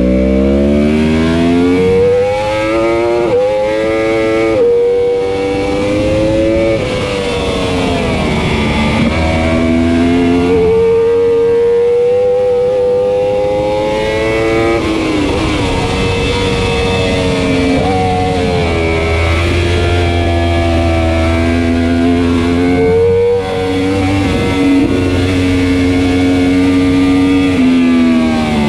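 2015 Yamaha R1's inline-four engine at full race pace, its pitch climbing in steps as it accelerates through the gears, then dropping back and climbing again as the bike brakes and powers out of the corners.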